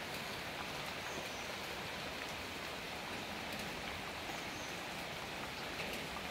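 Heavy rain falling steadily as a dense, even hiss, with scattered faint ticks of individual drops.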